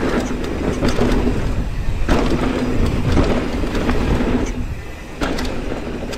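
Mountain bike rolling fast down a bone-dry dirt trail: tyres running over loose dirt and gravel, with frequent knocks and rattles from the bike over bumps, picked up by a camera on the bike or rider.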